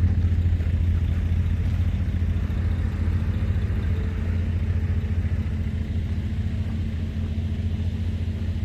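A large engine running steadily with a low droning hum, easing slightly in loudness through the second half.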